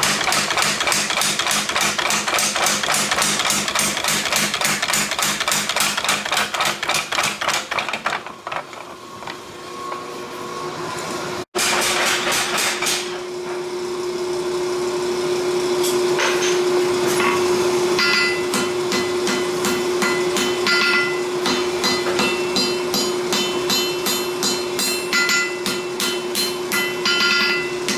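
Rapid, evenly spaced hammer blows on metal, as in forging steel on an anvil, with a short break about a third of the way through before the hammering picks up again.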